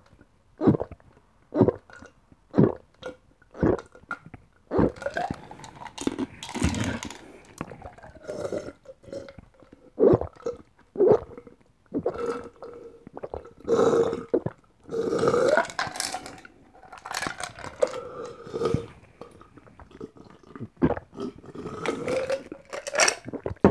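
A person gulping a basil seed drink from a glass: sharp swallows about once a second at first, then a denser run of gulping and throat sounds with some longer, burp-like gulps.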